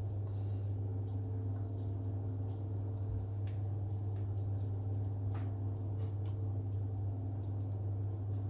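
A steady low hum, with faint, scattered light taps and scrapes of a utensil spreading sauce across a baking tray.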